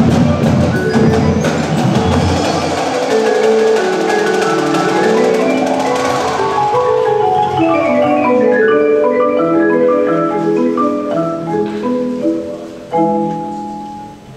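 Indoor percussion ensemble playing: dense drum hits in the first couple of seconds, then marimbas carry on with rippling runs of mallet notes that thin out and fade, with a chord struck near the end.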